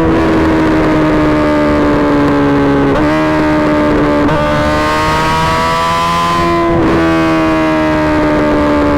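Suzuki GSX-R1000's inline-four engine through an M4 GP slip-on exhaust, held at high revs. The steady, high-pitched note sags slowly and jumps abruptly in pitch a few times.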